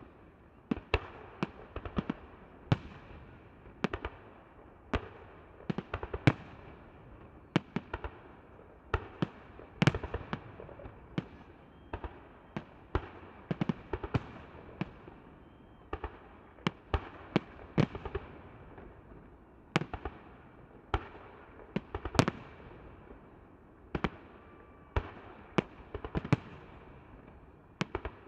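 Fireworks salute: shells bursting in an irregular run of sharp bangs, about one to three a second, each trailing off in a fading rumble.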